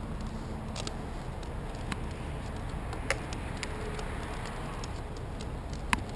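Scattered light clicks and knocks of climbing hardware and gear on a harness as a climber moves in a tree, over a steady low background rumble. The two sharpest clicks come about three seconds in and near the end.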